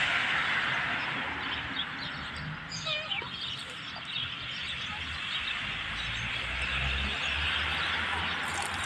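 Outdoor background of a steady high hiss with a low rumble, and a few short bird chirps about three seconds in.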